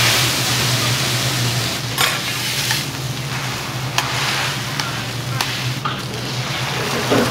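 Food sizzling on a hot iron teppan griddle, over a steady low hum. A handful of sharp clicks of metal spatulas striking the griddle come every second or so.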